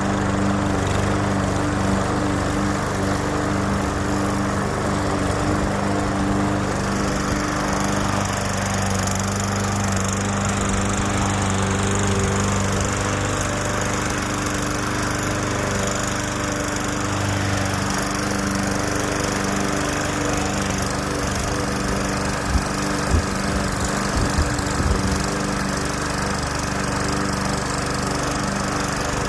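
Gas walk-behind lawn mower running steadily as it cuts grass, its engine note shifting slightly now and then. A few sharp clicks come through about three-quarters of the way in.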